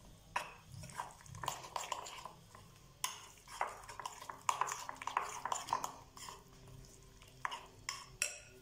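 A spoon stirring thick semolina and vegetable batter in a glass bowl, with repeated uneven scrapes and clinks of the spoon against the glass as Eno fruit salt is mixed in.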